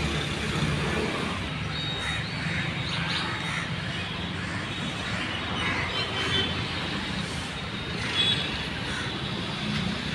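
Steady road traffic noise with a low hum, with a few short high chirps a couple of seconds in.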